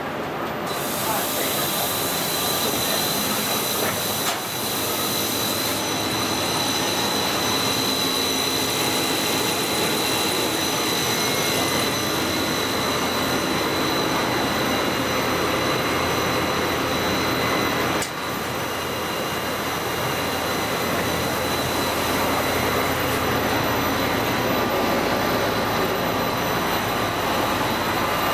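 Komori Lithrone sheetfed offset printing press running steadily, a dense mechanical rumble with a thin high whine held over it.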